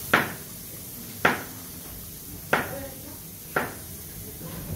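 Chef's knife chopping down through food onto a plastic cutting board: four sharp knocks, a little over a second apart.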